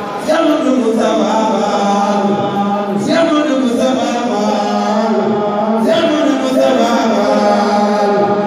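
A male voice chanting Mouride devotional verse through a microphone and loudspeakers, in phrases that start afresh about every three seconds over a steady held low note.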